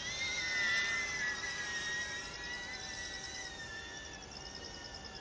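DJI Avata FPV drone's ducted propellers whining in flight, heard from the ground: the pitch rises and the sound swells about half a second in, then slowly drops and fades as the drone dives away. Crickets chirp faintly underneath.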